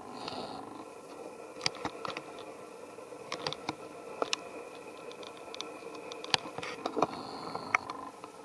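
Irregular sharp clicks and crackles as a young long-tailed macaque scrambles over rock and climbs a tree trunk, over a steady faint background hum. A brief high whistle near the end.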